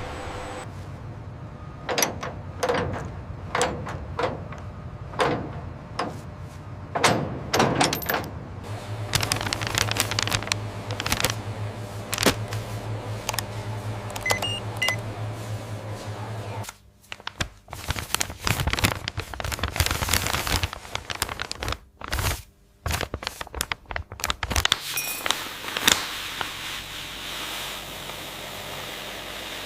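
Machinery clatter: repeated knocks and clanks over a steady low hum, the mix changing abruptly several times.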